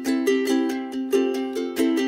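Background music: a light tune of plucked string notes in a steady, even rhythm.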